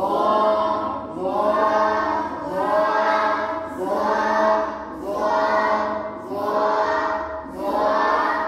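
A group of children reciting in unison, chanting a short phrase over and over, about one every second and a quarter, as in a maktab lesson repeating Arabic letters after the teacher.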